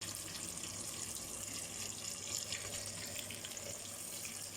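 Chicken pieces deep-frying in plenty of hot oil: a steady sizzle with faint scattered crackles.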